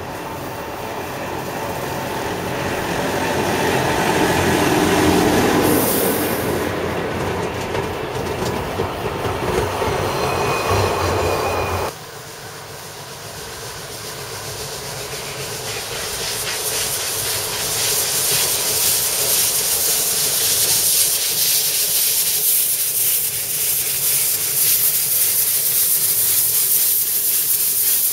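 Rack-railway train approaching and growing louder: first a Salamander railcar running up the cog track, then, after a sudden cut, a rack steam locomotive coming closer with a rising hiss of steam venting from its cylinder drain cocks over its working beat.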